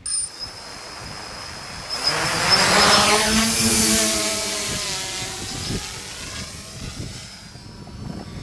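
TBS Discovery quadcopter's electric motors and propellers spinning up with a steady high whine, then running at full power about two seconds in as it lifts off, the pitch shifting. The sound fades gradually as it climbs away.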